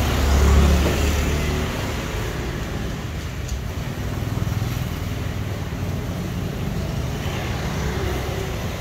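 Road traffic noise, with a passing vehicle's low rumble that swells and fades within the first second or two, over a steady hum of traffic.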